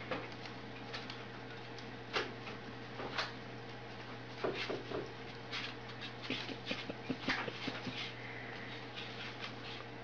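White cockatoo's claws tapping and clicking on a wooden tabletop as it struts and dances. The taps come singly at first, then in a quick irregular flurry in the middle, over a steady low hum.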